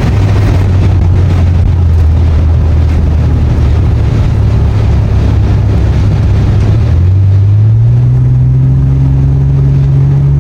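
Car driving on the freeway in strong gusty wind, heard from inside the cabin: a loud, steady rush of road and wind noise over the engine's low hum, which sinks in pitch and then rises again about seven seconds in.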